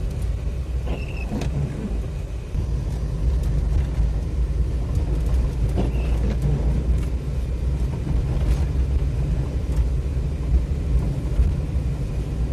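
Car cabin noise while driving on wet streets: a steady low rumble of the engine and tyres, with a few faint ticks.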